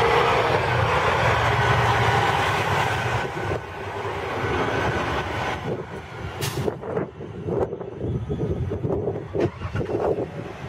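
Semi-truck pulling a box trailer drives past with its engine running loud and steady, then drops off after about three and a half seconds as it moves away. The second half is quieter, with a scatter of short knocks and rattles.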